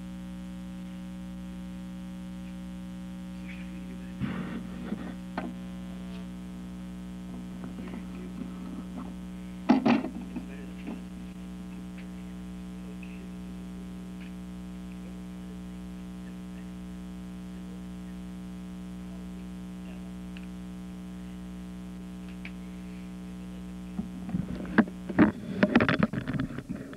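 Steady electrical hum with many overtones on a VHS tape's soundtrack, broken by short bursts of crackling about four seconds in and again at ten seconds, with a louder cluster of crackles near the end.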